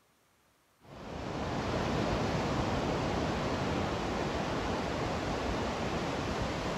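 Steady rush of ocean surf breaking on a beach, cutting in abruptly about a second in after near silence.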